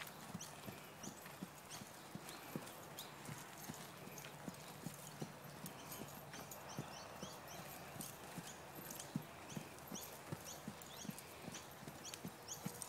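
A horse trotting on soft dirt: a faint, steady rhythm of muffled hoofbeats.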